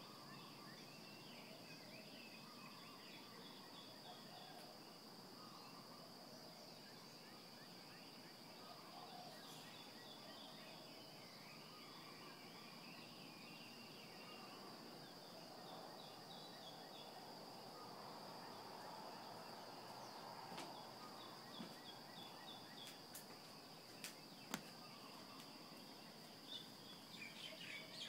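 Small birds chirping and singing in a faint dawn chorus over a steady high-pitched whine. A few sharp clicks come in the second half, and the chirping picks up near the end.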